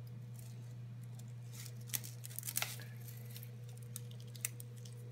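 Scissors snipping and handling a thin plastic strip: a few short sharp clicks and rustles, the strongest about two seconds in and one more near the end, over a steady low hum.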